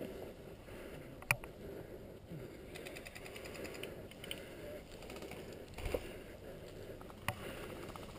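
Short bursts of airsoft electric-gun fire, heard as runs of rapid even clicks about three to four seconds in, over a steady rustle of movement; a sharp click about a second in and a thump near six seconds.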